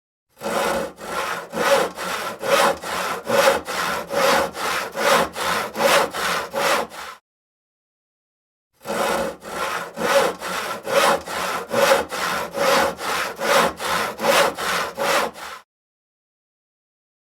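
Hand saw cutting through wood in steady back-and-forth strokes, about two to three a second. There are two runs of roughly seven seconds each, with a pause of about a second and a half between them.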